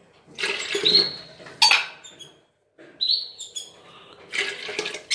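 Small cage birds chirping in short high whistles, while water is poured from a stainless-steel bird water cup into a plastic jar.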